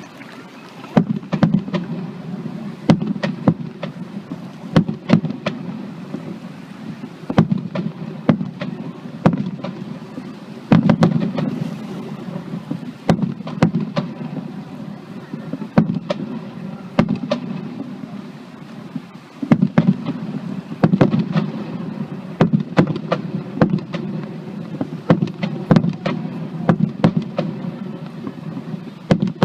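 Fireworks display: many sharp shell bursts going off at irregular intervals, several a second at times, over a continuous crackling haze.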